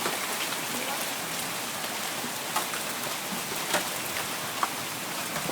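Steady rain pouring down on the ground, starting to let up, with a few sharp taps of drops striking close by.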